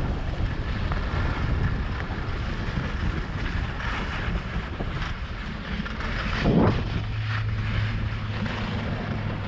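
Wind buffeting a GoPro's microphone during a downhill ski run, over the hiss and scrape of sliding on packed snow. About six and a half seconds in comes a thump, then a steady low hum.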